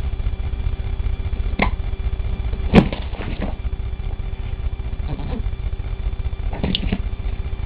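A handful of dull knocks and bumps, a cat shifting about inside a closed suitcase, with the loudest knock about three seconds in. A steady low rumble runs underneath.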